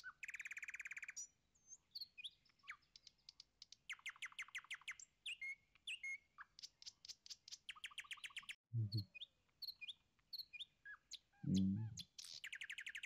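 Small birds chirping, with several quick trills of rapidly repeated high notes. Two brief low sounds break in, one about nine seconds in and a louder one near the end.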